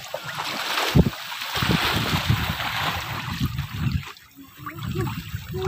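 Wind buffeting the microphone over sea water splashing and rushing along an outrigger boat's hull. The hiss eases about three and a half seconds in.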